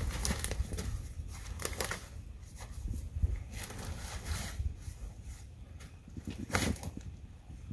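Boots crunching through snow and a deer carcass being dragged over brush and leaf litter: irregular crunching and rustling.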